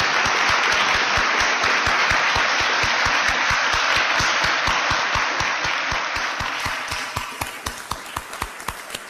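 Audience applauding: a dense, steady round of clapping that thins after about six seconds into scattered single claps and dies away near the end. One pair of hands claps close to the microphone, about five claps a second.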